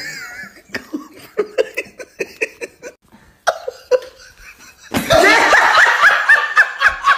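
Person laughing: short, quick giggles at first, then louder, high-pitched laughter from about five seconds in.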